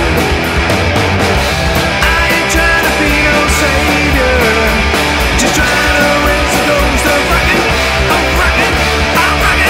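Live rock band playing loud and steady: distorted electric guitar, electric bass and drums with a driving beat of cymbal and snare hits.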